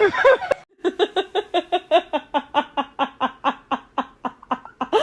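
A long run of rhythmic laughter, an even string of short ha-ha pulses about five or six a second, starting about a second in and lasting about four seconds.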